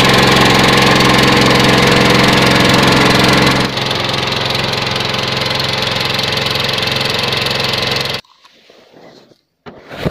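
Small wooden river boat's engine running steadily under way, heard from on board. Its level drops a little a third of the way in, and it cuts off suddenly near the end.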